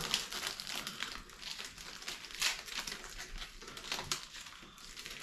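Foil Pokémon card booster pack wrappers and cards being handled: irregular crinkling and rustling with small sharp crackles.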